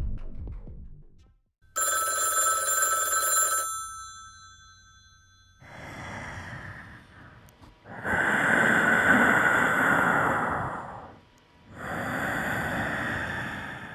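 A wall-mounted telephone rings once for about two seconds as music fades out. Then come three long breath-like hisses, heard as heavy breathing.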